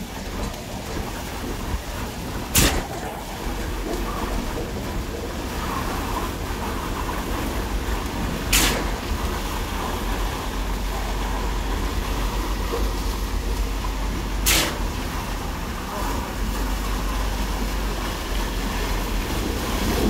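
Concrete pump running steadily with a deep rumble, broken by three sharp knocks about six seconds apart.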